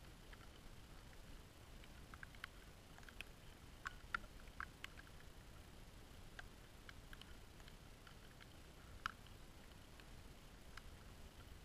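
Near silence: a faint low rumble with a dozen or so soft, scattered ticks, the loudest about four seconds in and again about nine seconds in.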